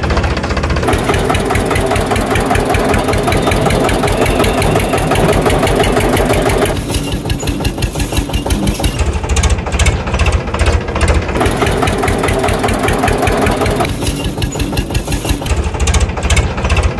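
Diesel tractor engine running with a rapid knocking beat. It alternates every few seconds between a heavier, fuller pull and lighter running.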